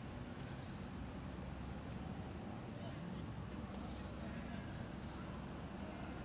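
Steady high-pitched drone of insects, with a low rumble underneath.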